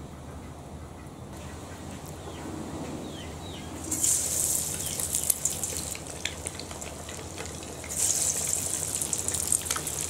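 Egg vadas dropped into hot oil for deep frying: a sudden loud sizzle about four seconds in that eases off, then a second sizzle as another vada goes in about eight seconds in.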